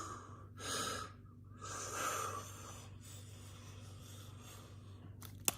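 A person taking slow, deep breaths in and out, a few long breaths in the first couple of seconds and then fainter, as a way to cure hiccups, with a short sharp sound near the end.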